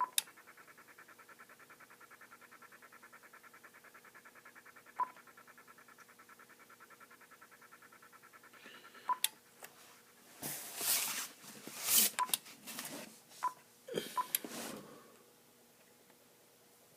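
Icom IC-7000 transceiver scanning with the squelch down: a rapid pulsing noise from its speaker, the scanning-speed noise of an open squelch, with short single beeps near the start, about five seconds in and about nine seconds in. From about ten to fifteen seconds in come louder, irregular bursts of hiss and crackle.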